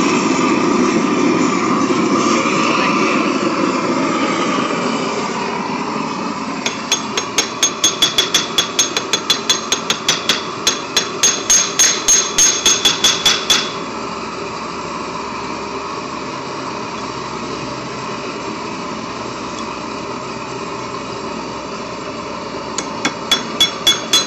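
Hammer blows on a small anvil in microforging: a quick run of ringing strikes, about four a second for some seven seconds, and a few more near the end. Between them a steady rushing noise, the propane blowtorch that heats the work.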